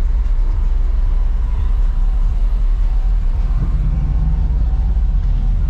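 Steady low rumble of a car engine running, with the low end getting fuller about three and a half seconds in.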